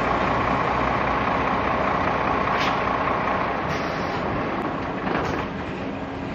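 Articulated truck driving away, its engine sound slowly fading as it moves off.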